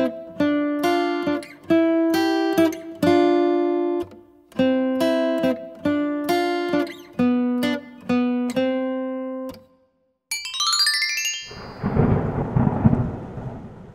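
Intro music: a plucked-string melody of single notes that ring and fade, stopping about nine and a half seconds in. Then a quick rising chime sweep, followed by a thunder-like rumble and crackle.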